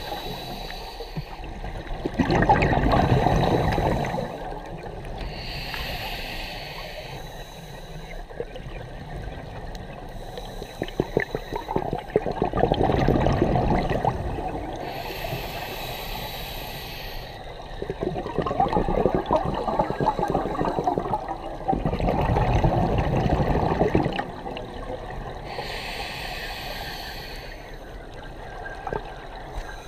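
Scuba diver breathing through a regulator underwater: a short hissing inhale through the demand valve, then a longer, louder bubbling rush of exhaled air, repeated over several slow breaths.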